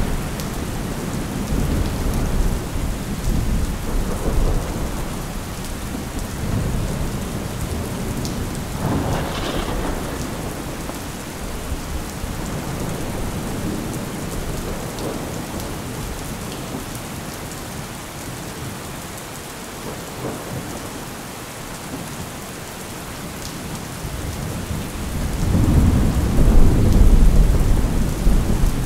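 Steady rain with thunder: a short rumble about nine seconds in and a louder, longer rolling rumble near the end.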